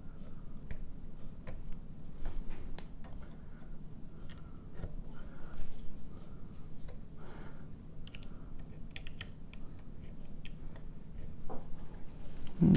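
Small metallic clicks and scrapes of the lock being handled by hand while its retaining clip is worked off the cylinder, irregular and scattered, over a steady low hum.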